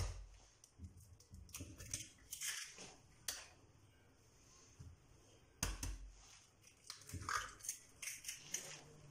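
Faint, scattered clicks and knocks of kitchen handling near a blender jug. The most distinct knock comes a little past halfway.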